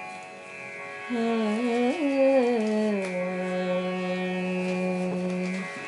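Carnatic devotional music introduction without words: a steady drone, over which a melodic line enters about a second in, slides through ornamented turns and then settles on a long held low note that stops near the end.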